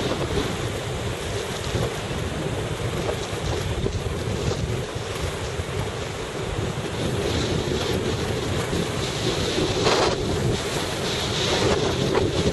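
Wind buffeting the microphone on a small boat at sea, over the steady run of the boat's engine and the wash of waves, with a brief louder burst of noise about ten seconds in.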